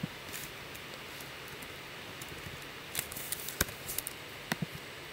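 Computer keyboard keys and mouse buttons clicking now and then over a faint steady hiss, with a quick run of keystrokes about three seconds in.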